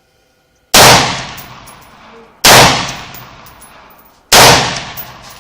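Three shots from a DPMS AR-15 rifle, spaced a little under two seconds apart, each very loud with a long echoing tail.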